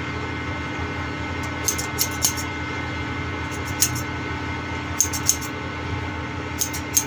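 Barber's scissors snipping hair in short clusters of quick snips, a few at a time with pauses between, over a steady background hum.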